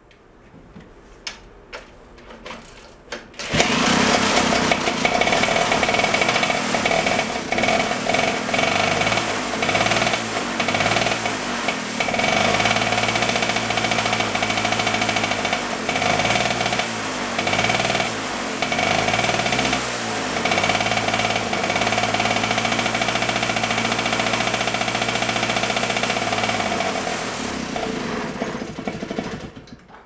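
A 1942 aircraft auxiliary power unit (APU) engine fires up about three and a half seconds in and runs loudly, its speed rising and falling as it is worked to get it to idle, then stops near the end.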